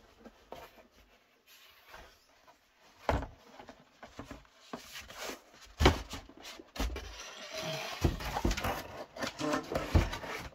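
Unboxing handling noise: scattered knocks and thumps, with some rustling partway through, as packaging and the boxed item are handled. The loudest knock comes about halfway.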